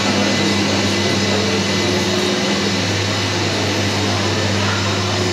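Loud, steady whooshing machine noise with a low hum. A slightly higher humming tone in it drops out about three seconds in.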